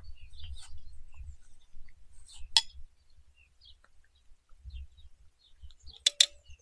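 Utensils and dishes clinking while food is served. There is a single sharp clink about two and a half seconds in and a quick double clink near the end, the second one ringing briefly. A low rumble runs under the first second or so.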